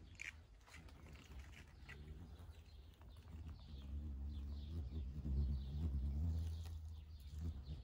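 Low hum of a hummingbird hawk moth's wings as it hovers at petunia flowers. The hum swells about four seconds in and fades just before the end, with faint bird chirps behind it.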